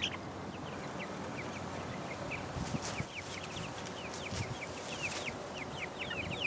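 Young chickens peeping: many short, falling chirps, one after another.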